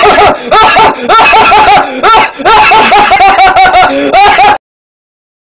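A cartoon boy's loud, high-pitched laugh: a fast run of 'ha' syllables, each rising and falling in pitch, that cuts off suddenly near the end.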